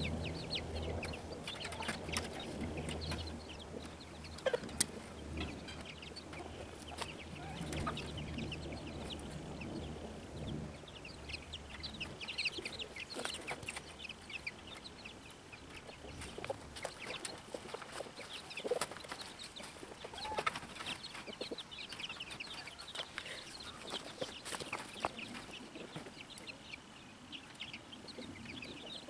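Chickens clucking, with a few sharp clicks. A low steady hum runs under them and cuts off about twelve seconds in.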